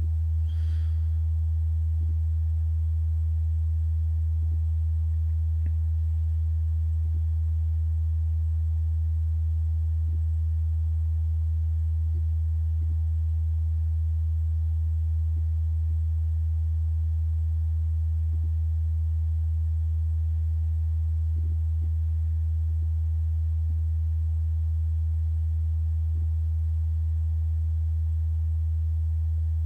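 A steady, unchanging low-pitched hum: a single pure tone that holds one pitch and level throughout.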